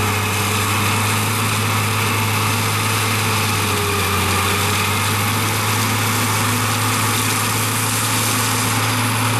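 Variotrac 400 forestry mulcher running steadily under load, its engine and front Plaisance mulching head chewing through grass and brush: a constant low drone under a dense, even whir.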